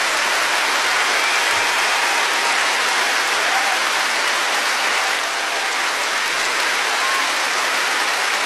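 A large arena audience applauding steadily in a dense, even roar of clapping, with a few short whistles.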